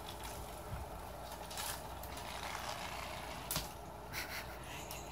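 Steady low room hum and hiss, with a few faint brief rustles and one sharp click about three and a half seconds in.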